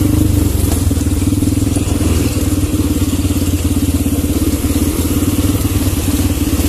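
Quad bike (ATV) engines running steadily as the quads ride slowly along a rough dirt trail.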